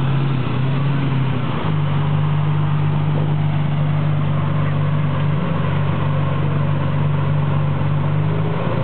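Lamborghini Murciélago's V12 engine idling steadily, its note shifting slightly about a second and a half in.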